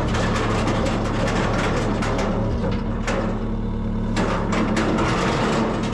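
An engine running steadily, with several sharp knocks about three seconds in and again between four and five seconds in.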